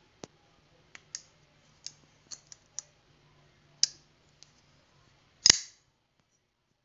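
Folding knife handled with a series of small, sharp metallic clicks, then its blade snapping open and locking with one loud click about five and a half seconds in.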